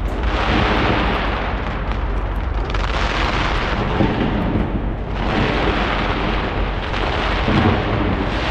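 Dense, continuous barrage of skyscraper fireworks, a rapid run of booms and crackling reports with no gaps. The barrage eases briefly and surges again about five seconds in.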